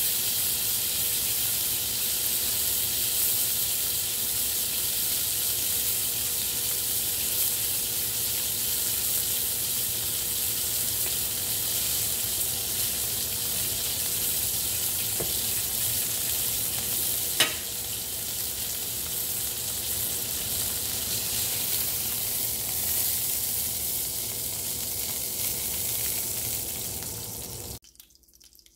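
Steak searing in a smoking-hot cast iron skillet: a steady, loud sizzle of fat and juices on high heat, the final sear of a reverse-seared steak. One sharp click about two-thirds of the way through. The sizzle cuts off suddenly just before the end.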